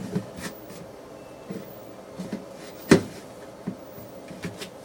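Light knocks and clacks of small hard objects being handled, with one sharper knock about three seconds in.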